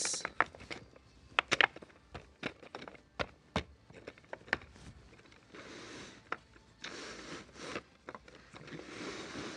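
Wooden tambour door panels knocking as they are set into the routed groove of a plywood base, a series of short sharp clacks, then sliding along the groove with stretches of soft scraping.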